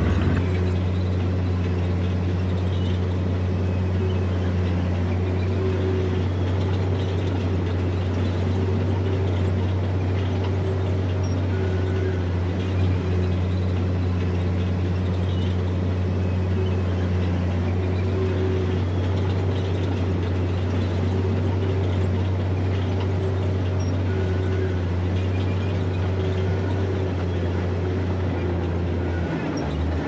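Bulldozer's diesel engine running at steady revs, a low, even drone that does not let up.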